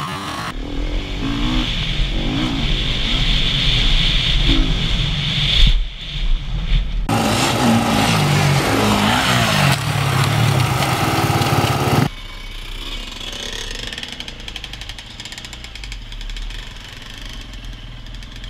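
Enduro dirt-bike engines revving up and down as the bikes ride and jump a sandy track, in short clips that cut off abruptly. From about twelve seconds in, a quieter, steadier engine note heard from on board a moving bike.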